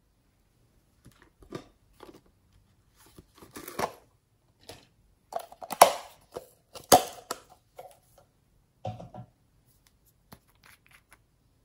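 Close handling noises from small plastic and glass containers: scattered clicks and scrapes, busiest in the middle, where a few sharper knocks come as a plastic bottle is tipped over the bowl, and a short rustle of twisting near the end as a nail-polish bottle is opened.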